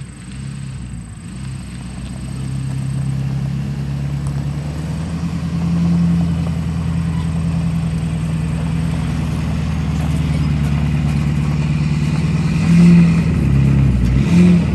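Ford Super Duty dually pickup's engine pulling steadily under load as it tows a heavy gooseneck trailer, growing louder as it approaches and loudest near the end as it passes close by.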